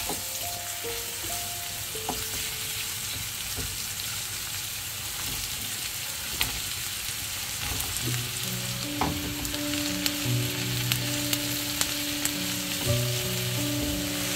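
Food sizzling in oil in a frying pan, with the scrape and occasional tap of a utensil stirring it. Soft background music comes in over it about halfway through.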